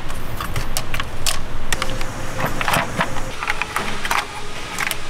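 Irregular sharp clicks and plastic rattles as wiring connectors and clips are unfastened and the plastic intake manifold is lifted off a BMW B58 inline-six engine.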